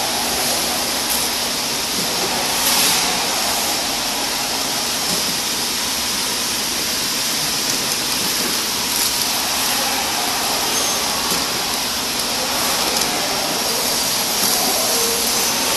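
Horizontal flow-pack machine running steadily as it wraps plastic spoons into film bags: an even mechanical hiss and whir with occasional faint ticks.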